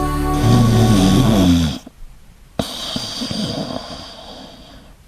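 A person snoring: a long, loud, pitched snore that slides down in pitch and breaks off about two seconds in. A sharp click follows, then a quieter, noisier stretch that fades out.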